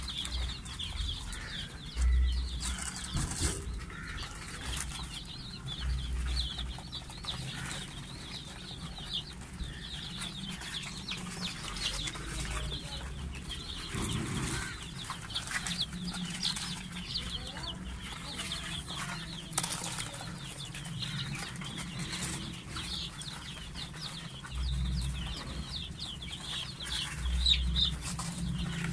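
A brood of young chicks cheeping continuously, many short high peeps overlapping. Occasional low rumbles come and go underneath.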